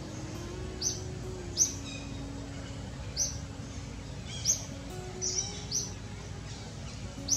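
Outdoor bird chirping: about seven short, sharp, high chirps, each falling slightly in pitch, at irregular intervals over a steady background hiss. A faint, long-held low tone underneath shifts pitch a few times.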